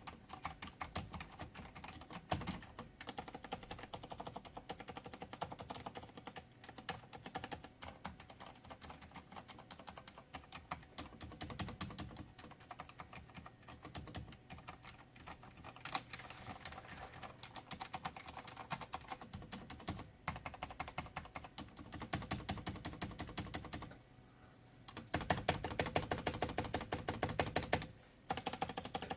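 Rapid, hard typing on a Filco Silent mechanical keyboard, a dense clatter of keystrokes with a short pause near the end followed by a louder flurry.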